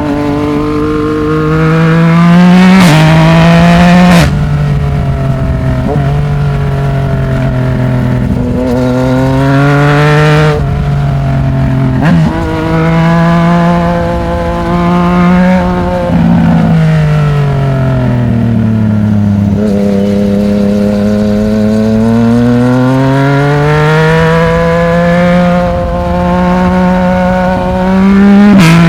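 Yamaha MT-09's three-cylinder engine through a Black Widow 200 mm aftermarket exhaust under riding load. The revs climb and drop with each gear change, fall slowly about two-thirds of the way in, then rise steadily again, with a few sharp cracks from the exhaust.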